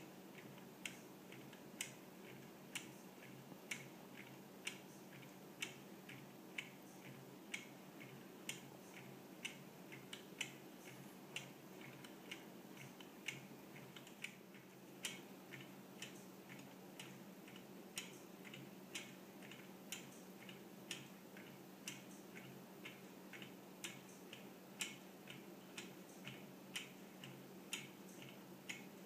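Wooden-geared Toucan clock ticking faintly, its escape pallets clicking about once a second with softer clicks in between, over a steady low hum.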